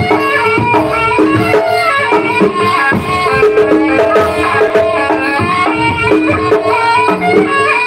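Live East Javanese jaranan ensemble music: drums beating a steady rhythm under a melody of sustained and struck pitched notes.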